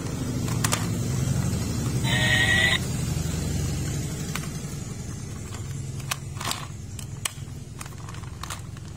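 Battery-powered toy locomotive switched on: a low electric buzz with clicks from handling the plastic body, and a short electronic tone from its little speaker about two seconds in. The train does not move, which the owner puts down to a broken motor.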